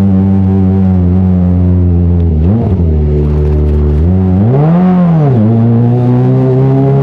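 Kawasaki ZX-25R 250 cc inline-four running through an Arrow full-system titanium exhaust, idling steadily with two throttle blips: a short one about two and a half seconds in and a bigger rev a couple of seconds later, dropping back to idle each time.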